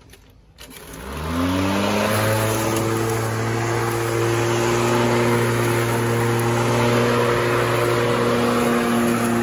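Greenworks 20-inch 12-amp corded electric lawnmower switched on about a second in: the motor whines up to speed, then runs steadily with the blade spinning as the mower is pushed through the grass.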